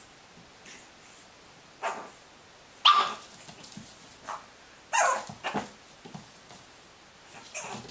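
A dog barking: a handful of short, separate barks spread over several seconds, the loudest about three and five seconds in.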